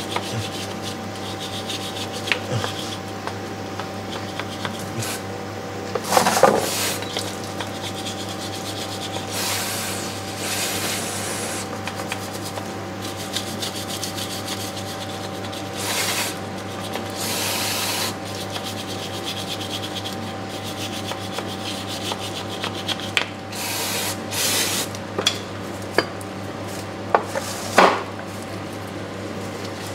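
A flat metal scraper rubbing and scraping oily grime off the underside of a Land Cruiser 40's transmission case, with a few sharp knocks. Several bursts of hiss from an aerosol cleaner can are sprayed onto the case, over a steady background hum.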